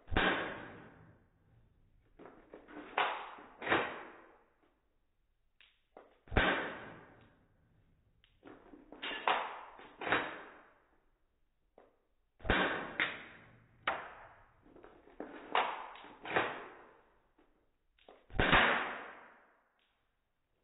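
Sharp impacts, each ringing away over about a second. A loud one comes about every six seconds, with two or three lighter knocks between.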